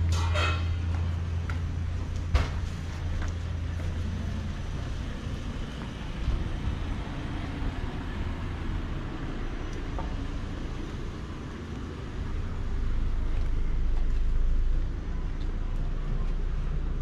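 Street traffic: a vehicle's low engine hum fades away over the first few seconds, a sharp click sounds about two seconds in, and another vehicle's low rumble swells and passes around twelve to fifteen seconds in.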